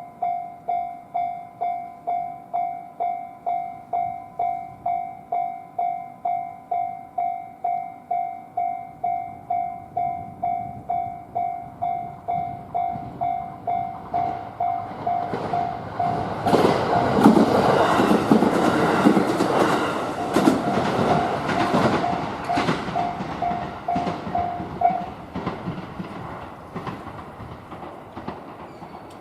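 Japanese level-crossing alarm ringing its steady 'kan-kan' at a bit under two strikes a second, while a diesel railcar on the JR Kishin Line runs over the crossing with loud rumbling and wheel clatter. The bell stops about 25 seconds in, and the train sound fades away.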